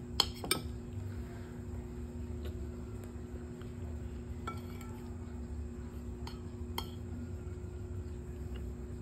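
Metal spoon clinking and scraping against a ceramic bowl while eating, with two sharp clinks just after the start and a few lighter ones later, over a steady low hum.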